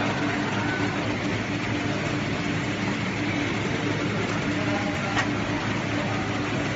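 Steady mechanical hum and hiss of a PCB laser marking machine running, with a low hum that pulses slightly. A light click comes about five seconds in.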